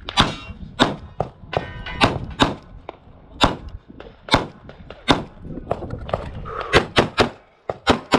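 Pistol shots from a 9mm Glock 45 during a USPSA stage: about fourteen sharp shots at an irregular pace, some in quick pairs and a fast string near the end.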